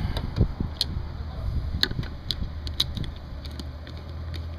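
Scattered sharp metallic clicks of a nut driver working the hose clamps on a rubber cold air intake tube as they are tightened, over a steady low hum.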